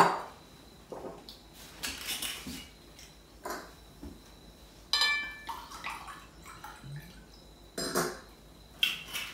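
White wine being poured from a bottle into a wine glass, among knocks of glassware and dishes on the bench. A sharp knock comes at the start, and a short ringing glass clink about five seconds in.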